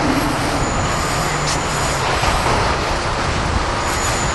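Steady road traffic noise from a city street: the constant rumble and hiss of passing vehicles.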